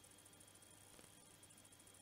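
Near silence: faint room tone with a steady hum and one faint click about halfway through.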